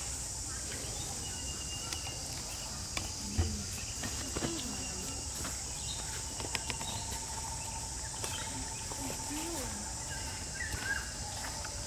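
A steady, high-pitched insect chorus, with scattered soft clicks and taps and a few brief faint chirps over it.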